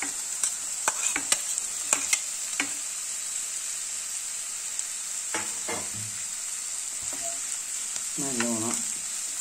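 Sliced onions, garlic, ginger and green chillies sizzling steadily in hot coconut oil in a nonstick pan, with a few sharp clicks and taps against the pan in the first few seconds.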